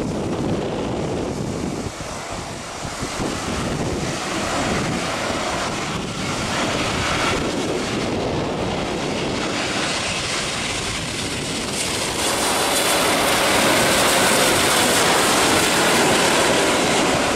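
Boeing 787 airliner on final approach with its landing gear down, its jet engines giving a steady rushing noise that grows louder about twelve seconds in as it passes low overhead, with wind buffeting the microphone.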